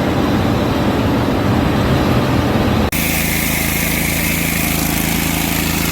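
Farm machinery running steadily: a rough rumbling engine, then after a cut about three seconds in, a steadier drone with a constant low hum and a higher whine.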